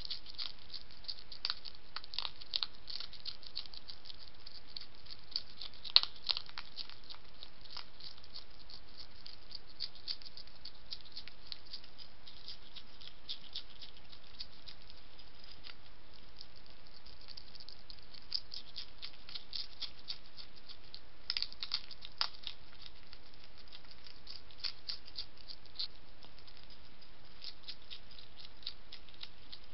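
European hedgehog eating dry food from a bowl: a steady run of small crunches and clicks as it chews and the pieces rattle. There is one sharper click about six seconds in and a flurry of them about twenty-one seconds in.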